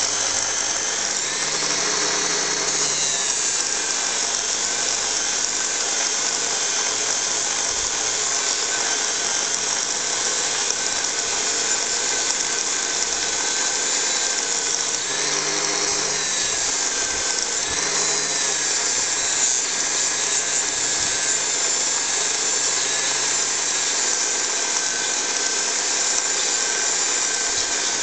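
Small electric mini bench grinder running steadily with a buffing wheel, a continuous motor whine that briefly dips in pitch a few times as a brass lamp part is pressed against the wheel to polish it.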